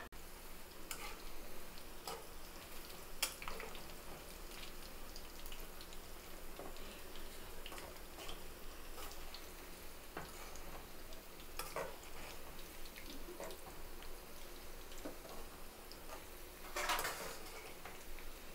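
Ragi-flour and spinach pakodi deep-frying in hot oil in a kadai, a steady sizzle, with a metal spoon stirring and knocking against the pan now and then; a louder clatter near the end.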